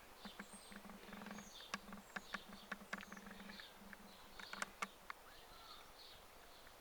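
Faint background of scattered light clicks and a few short high chirps over a low hum.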